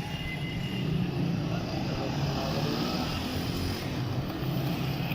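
1986 Vespa 125 scooter's two-stroke single-cylinder engine running steadily under way on a test ride, its note wavering a little.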